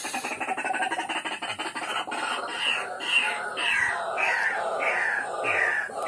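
A bird calling over and over in short, falling notes, about two a second, beginning about two seconds in, over a steady, rapid chirring.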